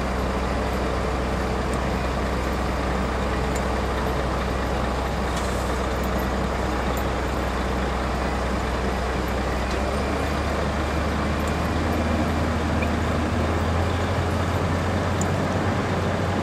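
Heavy diesel engine of the construction machinery running steadily as it lifts the wreck, its pitch rising about ten seconds in and again near the end as the engine speeds up under load.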